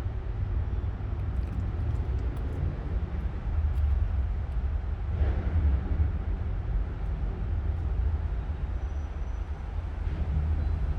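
Steady low outdoor rumble with no distinct events, with a faint short disturbance about five seconds in.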